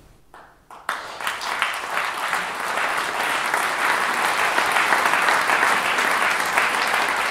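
Audience applauding: a couple of single claps about a second in, then steady applause from a large crowd that builds and holds.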